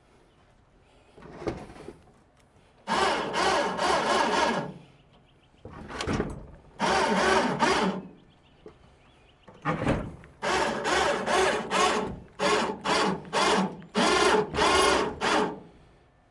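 12 V electric winch on a truck-mounted jib crane running in stop-start bursts: a few runs of one to two seconds, then a quick string of shorter bursts.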